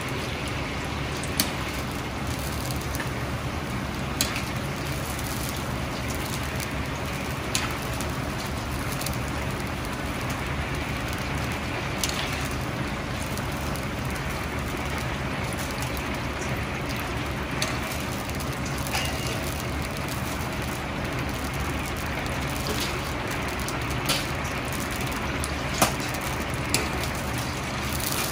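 Battered chicken deep-frying in a large wok of hot oil: a steady sizzling hiss over the low, steady rumble of the wok's gas burner, with occasional sharp clicks.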